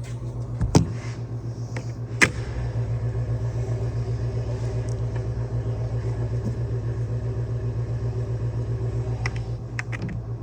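A motor running steadily with a low, pulsing hum, and two sharp clicks about one and two seconds in.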